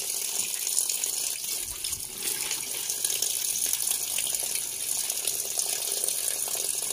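Tap water pouring in a steady stream into a metal pot of raw in-shell peanuts, splashing over the nuts as they are rinsed.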